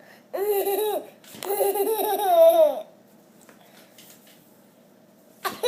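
A baby laughing a high-pitched, hiccupping laugh: two bursts of quick, repeated pulses in the first three seconds, then another short burst of laughter near the end.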